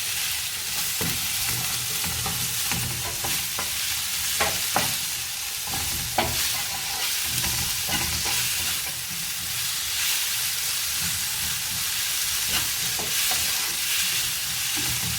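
Sliced onion and tomato frying in coconut oil in a pan, sizzling steadily while a spatula stirs through them, with a few short scrapes along the way.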